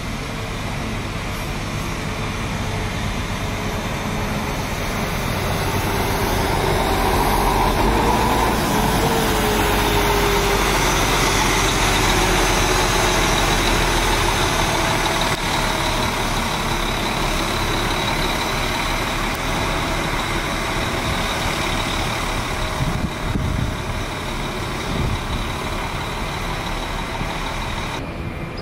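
A large coach's diesel engine running at low speed as it drives in and turns close by, growing louder to a peak near the middle and then slowly fading as it moves away.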